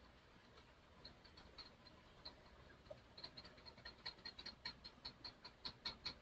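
Near silence with faint, quick ticking: sparse at first, then several sharp ticks a second, more distinct in the second half.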